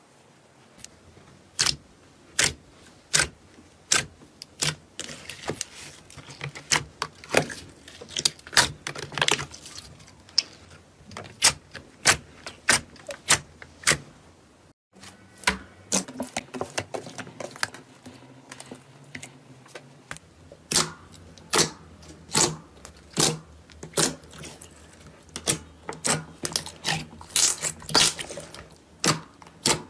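Slime being squeezed and poked by hand, giving a run of sharp, irregular pops and clicks, about one or two a second. It breaks off briefly about halfway through.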